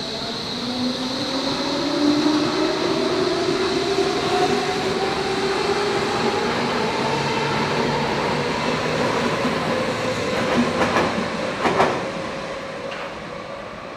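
Modernised S-Bahn Berlin class 480 electric multiple unit pulling away, its replacement traction electronics giving a whine that rises slowly in pitch as it accelerates. Near the end come a few sharp clacks of wheels over rail joints.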